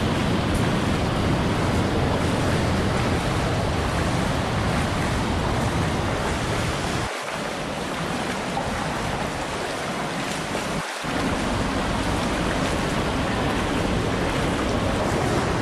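Rushing water from waterfalls and cascades, a steady white-water noise. About seven seconds in it turns thinner and quieter for roughly four seconds, then comes back full.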